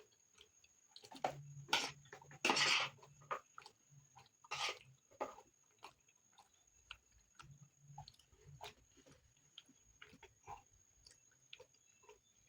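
Close-miked eating sounds: chewing a mouthful of rice and beans stew with many small wet mouth clicks, and a few louder bursts about two seconds in and again around four and a half seconds.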